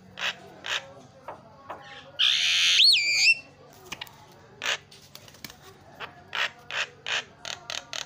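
Javan myna calling with short harsh rasping notes. About two seconds in comes a loud drawn-out screech that ends in a whistle dipping and rising, and near the end a quick run of rasping notes.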